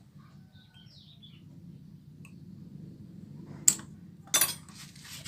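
Metal tools and engine parts clinking as a motorcycle engine is worked on: one sharp clink about three and a half seconds in, then a louder run of knocks just after, over a low steady hum. A bird chirps briefly near the start.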